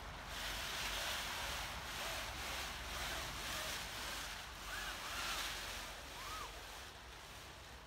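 Gusty rushing noise of wind and rustling sail cloth, swelling and fading about once a second as the spinnaker snuffer sock is hauled up and the nylon spinnaker opens, easing off near the end. A few short bird chirps sound faintly in between.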